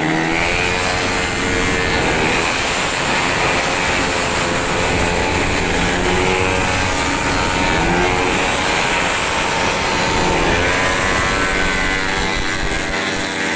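Several tuned 131cc automatic scooters racing, their engines revving hard, the pitch rising and falling over and over as they accelerate and pass.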